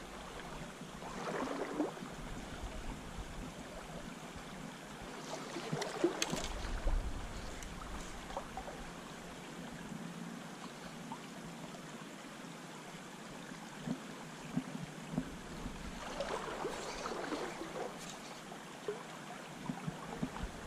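Shallow river running steadily over a stony riffle, with a few short louder surges of noise: one about a second and a half in, one about six seconds in, and a longer one a few seconds before the end.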